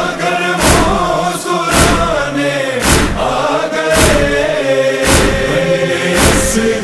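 Noha lament chanted by male voices in a long, held melodic line, over a sharp, regular beat about once a second.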